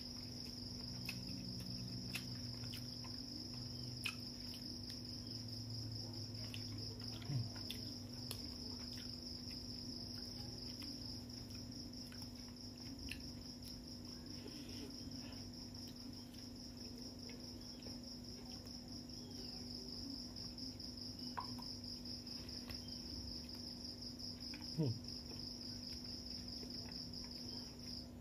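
Crickets chirping in a steady high trill, with scattered soft clicks and smacks from eating rice and fish by hand.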